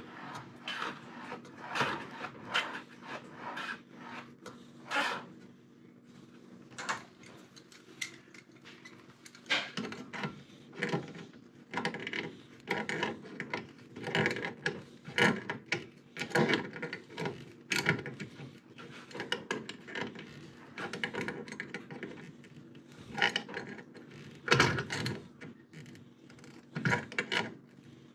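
Irregular metallic clicks and scrapes as the nut of a braided stainless steel water supply line is threaded onto a brass dishwasher inlet elbow and tightened with channel-lock pliers, over a steady low hum.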